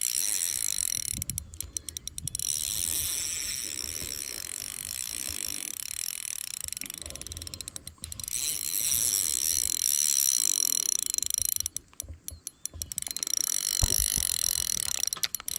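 Fishing reel ratcheting in long runs with brief pauses, as a big fish is fought on light tackle: line going out against the drag and being reeled back in.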